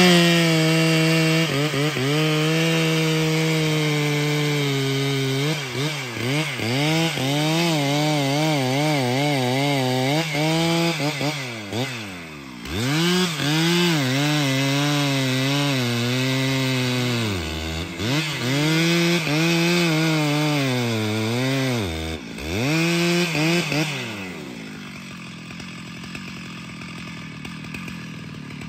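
Stihl MS 881 large-displacement two-stroke chainsaw running at full throttle while cutting through a tree trunk, its engine pitch dipping and recovering as the chain bogs under load in the wood, with a few brief deeper dips. Near the end the cut finishes and the engine winds down to a much quieter level.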